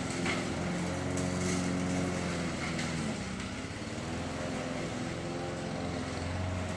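Lawn mower engine running steadily, its note dipping briefly about three seconds in.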